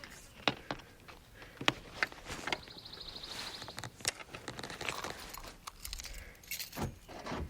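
Handling noises: scattered sharp clicks and knocks with light jingling, like keys, and rustling, and a short fast rattle about three seconds in.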